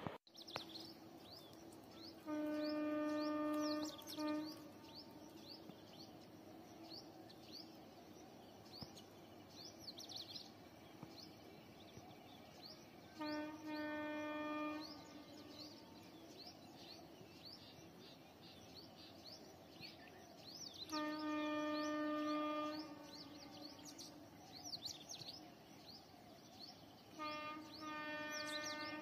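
Distant train horn sounding four separate blasts, each one to two seconds long and steady in pitch; the last starts with a few short toots. Birds chirp throughout.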